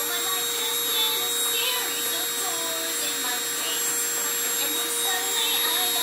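Small handheld rotary drill with a diamond bit running steadily: an even, unbroken motor whine over a hiss.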